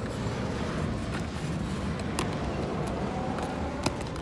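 Double-stack intermodal well cars rolling slowly past: a steady low rumble of steel wheels on rail, with a few sharp clicks from about two seconds in.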